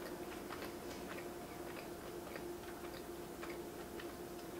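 Close-miked chewing of a donut with the mouth closed: irregular soft mouth clicks and smacks, roughly two a second, over a steady low hum.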